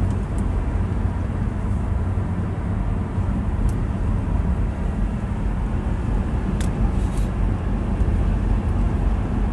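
Steady low road and engine rumble inside a moving car, with a few faint clicks.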